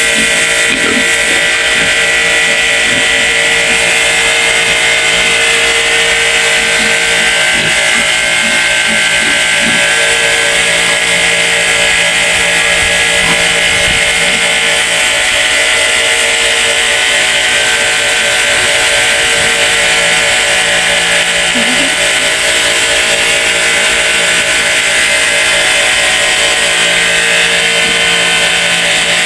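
A small motor running steadily with an even, unchanging drone.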